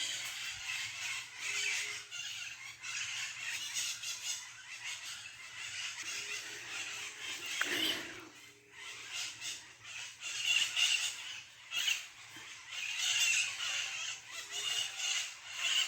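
A flock of maritacas (small parrots) screeching in a continuous, shrill chorus of overlapping calls, with a brief lull a little past the middle. The racket is typical of the birds squabbling over ripe fruit in the trees.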